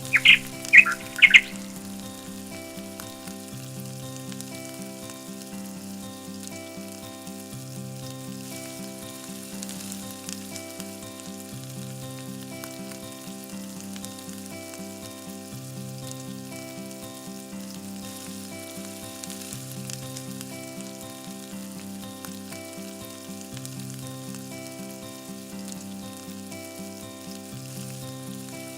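Chicken frying and sizzling in a miniature clay pot over a wood fire, a steady hiss, under background music of slow sustained notes. A few short, loud bird chirps come in the first second or two.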